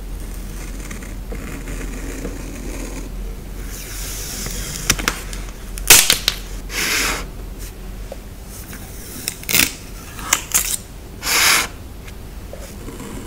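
Close-up paper and sticker handling for journal decorating: light paper rustling, then a scatter of sharp clicks (the loudest about halfway through) and several short rasping bursts.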